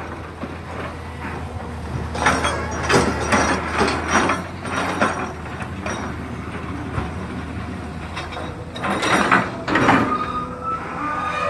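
Long-arm hydraulic excavator working: a steady engine hum under repeated clanking and creaking from the boom and bucket, with a short high whine near the end.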